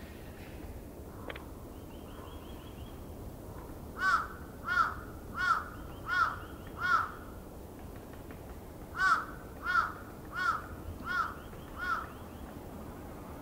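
A crow cawing: two runs of five loud, evenly spaced caws, the first starting about four seconds in and the second about two seconds after the first ends.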